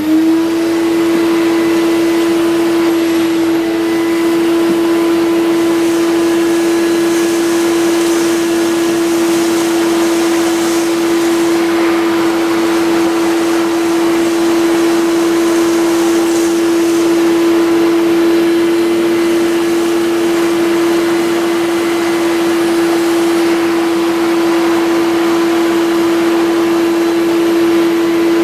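Late-1980s Volta canister vacuum cleaner running at full power, its motor giving a strong steady hum over a loud airy hiss as it sucks sawdust from carpet through a straight suction nozzle. The motor has just spun up as it starts.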